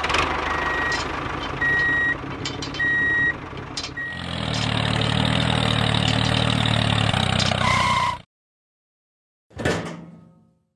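Vehicle engine sound effect dubbed onto a toy tractor: an engine running with reversing beeps about once a second, then a louder engine run from about four seconds in that cuts off suddenly near eight seconds. A brief thud follows near the end.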